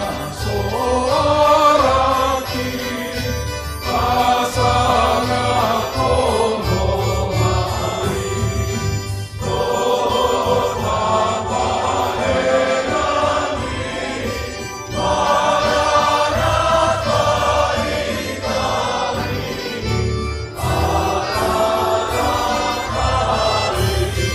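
Choir and congregation singing a Batak-language hymn in phrases with short breaths between lines, over a low instrumental accompaniment.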